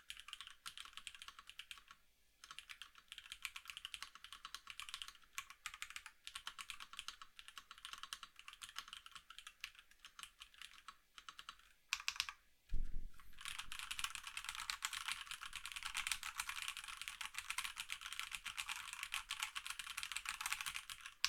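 Typing on a Rama Works KARA custom mechanical keyboard with a polycarbonate plate, Hey Switches 50g and Domikey single-chip keycaps: a quick, continuous run of key clacks. About twelve seconds in there is a brief break with a couple of harder strokes and a deep thump, then the typing resumes faster and louder.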